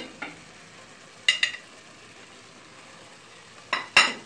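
Wooden spoon and ceramic plate knocking sharply in three quick pairs, the loudest near the end, as diced tomato is scraped and tapped off into the pot. Under the knocks, the pot's contents sizzle faintly and steadily.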